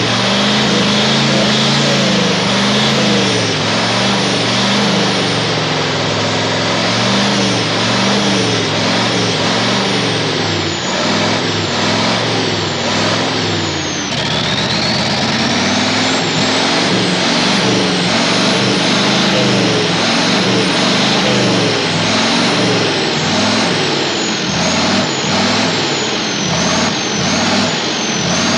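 Turbocharged multi-cylinder V engine of a modified pulling tractor revving up and down repeatedly while standing still, loud throughout.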